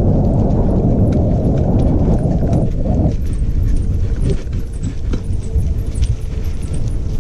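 Travel along a dry, leaf-covered dirt trail: irregular crunching and knocking steps, under a heavy rumble of wind or handling noise on the microphone that drops away abruptly about three seconds in.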